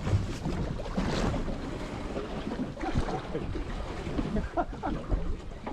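Wind buffeting the microphone and sea water lapping against the hull of a small fishing boat, with a couple of faint knocks.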